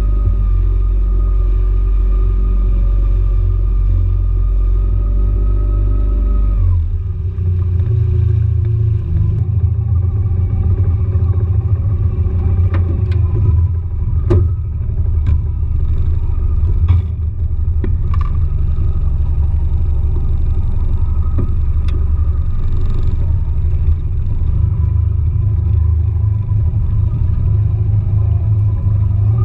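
A rigid inflatable boat's engine running under way over a heavy low rumble; the engine note drops about a third of the way through as the boat is throttled back. A few sharp knocks come in the middle.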